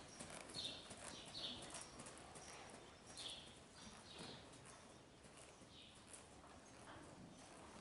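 Faint, muffled hoofbeats of a horse trotting on sand footing, with a few short, high chirps at irregular intervals.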